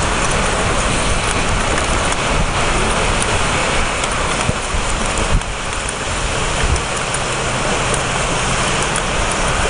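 Steady hiss of heavy rain, with wet-road traffic on the highway bridge and a gusty wind rumble on the microphone.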